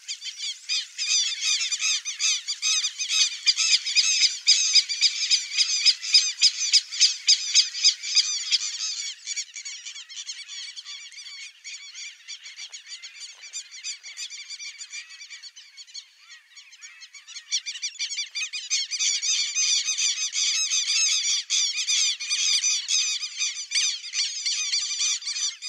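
Least grebes giving rapid, high-pitched squeaky calls repeated several times a second, in a loud spell early on and another near the end, with a quieter stretch in the middle.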